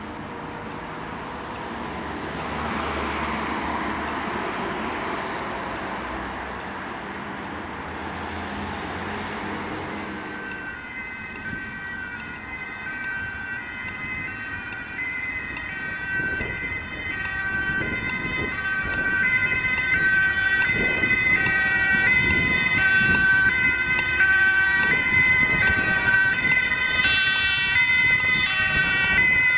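Road traffic passing, then from about ten seconds in a German two-tone siren (Martinshorn) alternating between its two pitches and growing louder as a Mercedes-Benz Sprinter ambulance approaches with blue lights on.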